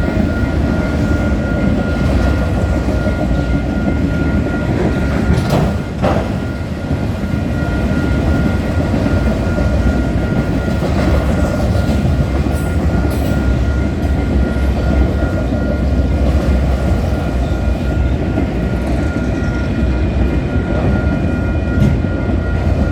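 Freight train cars rolling past, a steady loud rumble and clatter of steel wheels on the rails, with a high, evenly repeating ringing over it, typical of a level-crossing bell.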